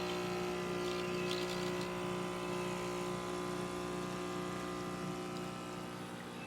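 DeLonghi espresso machine's vibratory pump running with a steady hum, pushing water through an empty portafilter with no coffee in it. The machine is pumping water through its group head normally.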